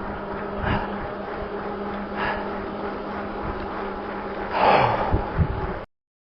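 A cyclist's heavy breathing while riding, a short rush of breath every second and a half or so, the loudest near the end, over a steady low hum. The sound cuts off suddenly into silence near the end.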